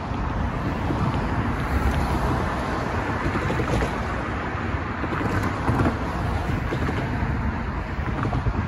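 Cars passing by on the road, tyre and engine noise, with wind buffeting the microphone throughout.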